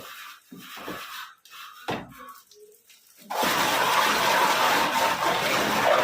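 A few short knocks and clatter, then about three seconds in a water pump suddenly starts running with a loud, steady rush of water.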